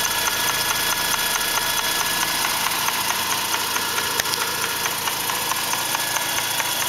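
2004 Mazda RX-8's Renesis two-rotor Wankel engine running steadily, with a fast, even ticking noise from the intake area. The noise turned out to come from the secondary shutter valves (SSV), which needed a rebuild.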